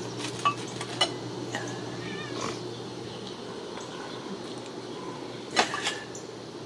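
A Ragdoll kitten gives a brief, high, wavering meow about two seconds in, among a few sharp knocks from play, the loudest knock coming near the end.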